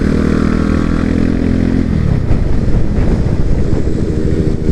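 Motorcycle engines running while riding in a group, heard from a microphone inside a rider's helmet. A steady engine note for about two seconds, then a rougher, noisier sound.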